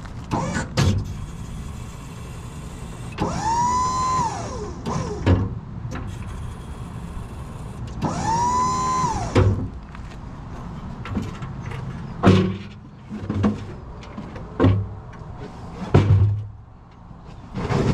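A cordless power tool's motor spins up to a steady high whine, holds about a second, and winds down, twice about five seconds apart. This is followed by several short metal knocks and clanks.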